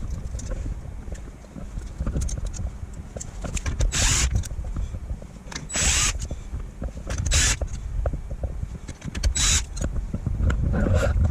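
Tools working the bolts on a Honda TRX450 clutch: four short, sharp rasping bursts, each under half a second, with small clicks between, over a steady low rumble.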